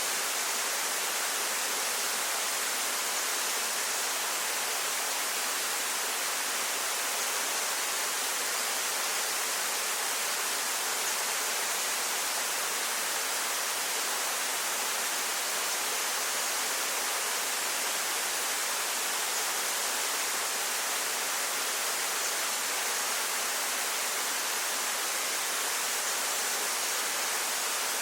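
Waterfall pouring steadily: an unbroken, even hiss of falling water, bright and with little low rumble.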